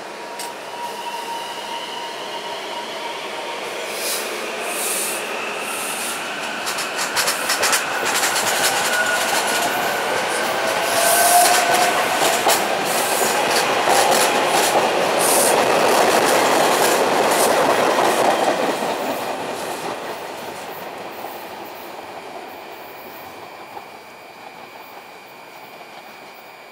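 SEPTA Silverliner V electric multiple-unit train accelerating out of a station past the listener. Whining tones rise in pitch as it picks up speed, and the wheels clatter over the rail joints. It grows loud through the middle, then fades as the train draws away.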